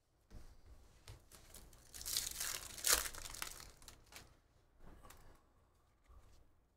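Trading cards and a pack wrapper rustling and crinkling in the hands as the cards are sorted through, with a louder stretch of crinkling about two to three seconds in.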